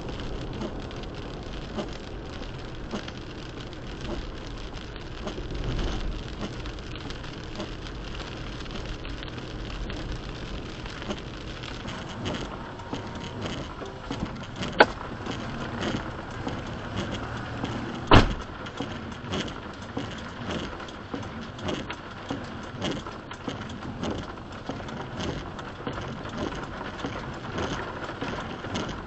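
Rain on a car, heard from inside the car, over the low rumble of the car driving, which dies away about a third of the way through as it comes to a stop. Two sharp clicks sound a little past the middle.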